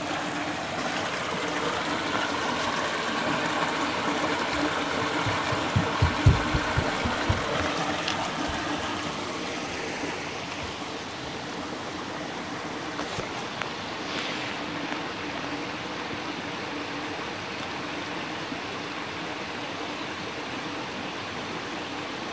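Shallow spring-fed stream running over rocks and logs, a steady rush of water, with a brief cluster of low thumps about six seconds in.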